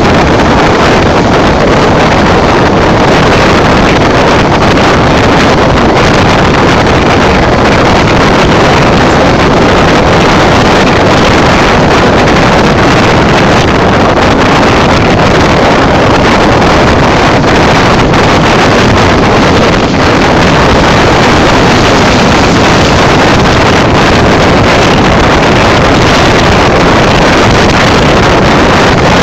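Loud, steady rushing noise of a sleeper train running at speed, with wind and wheel-on-rail noise blended into one even roar that has no clear engine note.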